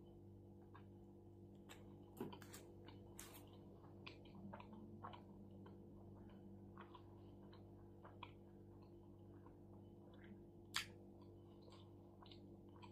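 Faint close-up chewing of a mouthful of shawarma: soft wet mouth clicks and smacks, with a few sharper clicks, the loudest near the end. A steady low hum runs underneath.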